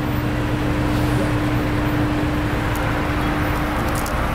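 Steady road-traffic noise with a low rumble, and a steady hum under it that fades out near the end.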